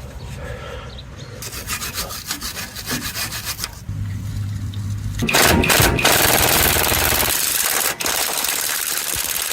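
Rhythmic scraping strokes, giving way about five seconds in to a louder, steady rasping hiss, with a low hum underneath for a while.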